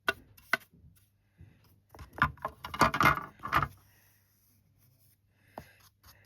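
Handling noise from craft work: a few light taps and clicks, with a short stretch of rustling and tapping around the middle, as excess embossing powder is cleared from the stamped card.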